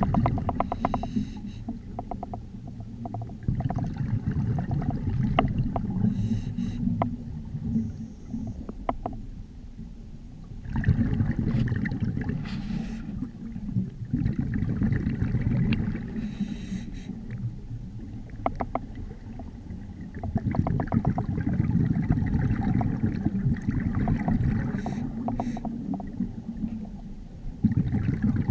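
A scuba diver breathing through a regulator underwater: a short hiss on each breath in and a rumble of exhaled bubbles on each breath out, repeating in cycles of several seconds, with scattered small clicks.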